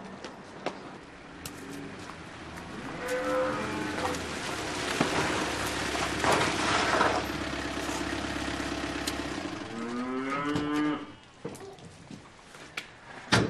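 Cattle mooing: a call a few seconds in and another about ten seconds in, over a steady low rumble through the middle.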